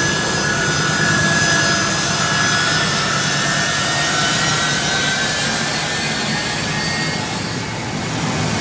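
Four turbofan engines of a U.S. Air Force C-17 Globemaster III transport jet running close by as it rolls down the runway: a steady, loud rushing with a thin high whine over it.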